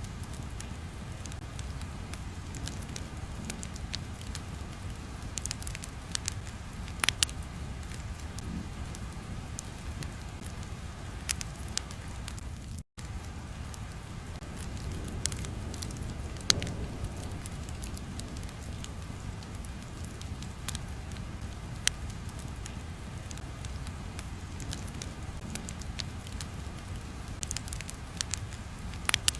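Crackling fire ambience: a steady low rumble with scattered sharp pops and crackles. The sound cuts out for an instant about thirteen seconds in.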